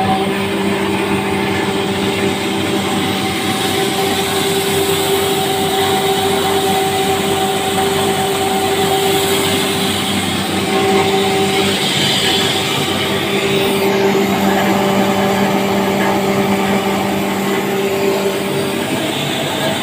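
Millet dehuller with aspirator running: a steady electric motor hum over the rushing noise of the blower and machine.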